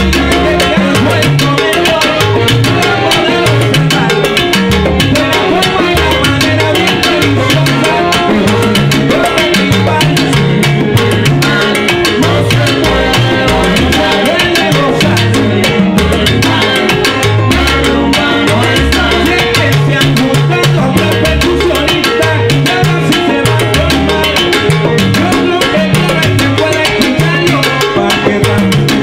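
Salsa big band playing live: a stepping bass line under busy Latin percussion, with the band's piano and horns filling the middle, at a steady dance tempo.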